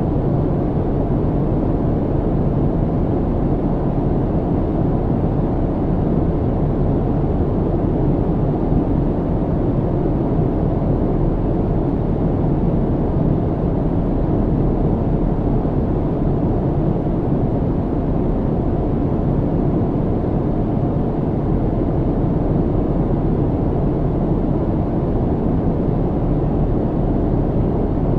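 Airplane cabin noise: a steady, unchanging low rumble and rush of engine and airflow noise, strongest in the low range with little hiss above.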